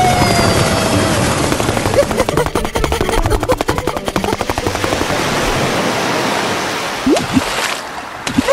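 Cartoon sound effect: a loud rushing noise with a fast rattle of clicks in the middle, which fades out near the end. In the first second, a held high cry slides down and dies away.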